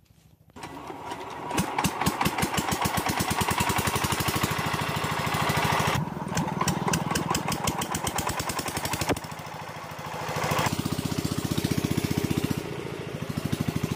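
The single-cylinder diesel engine of an 8 hp irrigation pumping set running with a steady, fast, evenly pulsing beat. It comes in suddenly about half a second in.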